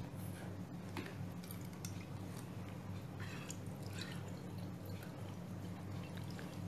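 Thin stream of water trickling from a straw in a plastic bottle into a glass jar, with faint drips and small clicks, over a steady low hum.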